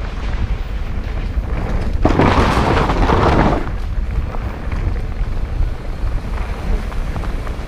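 Mountain bike rolling down a rocky dirt singletrack, heard as heavy wind buffeting on the microphone and rumble and rattle from the trail. About two seconds in, a louder rush of noise lasts a second and a half.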